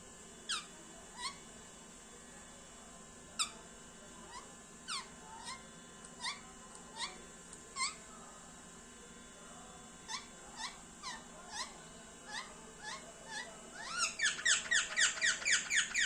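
Pet parrot chirping: short chirps that drop in pitch, one every half second to a second, then near the end a fast, louder run of about six chirps a second.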